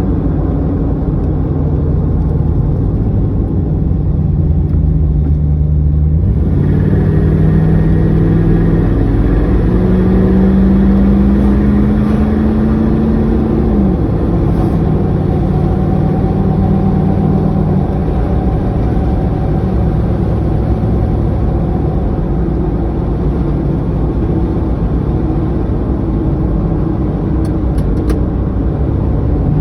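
A vehicle engine running steadily. Its pitch steps up about six seconds in, climbs slowly, then drops back about fourteen seconds in, as the engine speed rises and falls.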